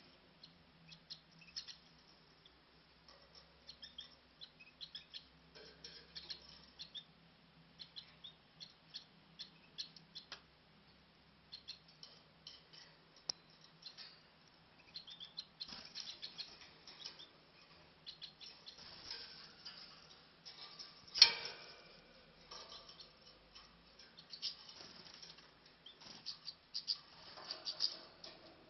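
Small cage birds giving many short, high chirps and peeps at irregular intervals, with one sharp knock about two-thirds of the way through.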